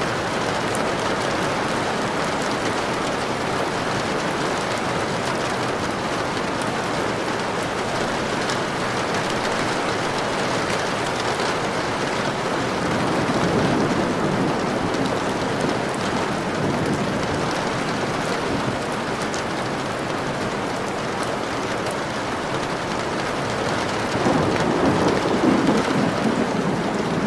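Steady rain with two low thunder rumbles swelling up, one about halfway through and one near the end.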